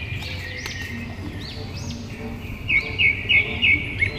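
Small birds chirping over and over in short arching calls, with a run of four louder chirps about three seconds in, over a low steady background rumble.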